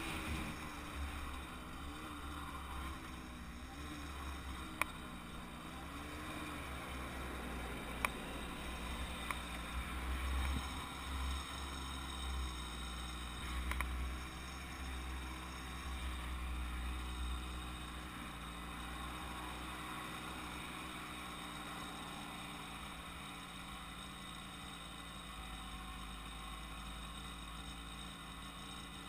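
Wind rumbling on the microphone over the faint drone of a Kreidler two-stroke moped engine on the move. Its pitch rises and falls through the first several seconds, then holds steadier.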